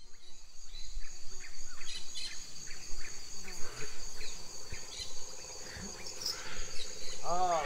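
Rainforest insect chorus, a steady high-pitched drone, with scattered short bird chirps. Near the end a run of loud, repeated rising-and-falling animal calls begins.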